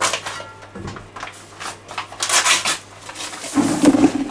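Plastic bag of rapid-setting cement crinkling and tearing as it is ripped open with the corner of a trowel, in several short rustling bursts. Near the end there is a louder, longer rustle as the bag is tipped over a plastic bucket.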